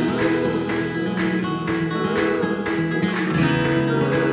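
Background music: strummed acoustic guitar playing chords with a steady rhythm.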